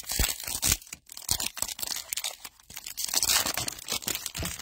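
Panini Playoff football trading card pack being torn open by hand, its wrapper ripping and crinkling in a dense run of crackles.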